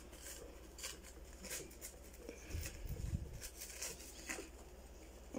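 Soft rustling and light ticks of hands working plant cuttings into potting soil in a plastic planter, with a few low handling bumps around the middle.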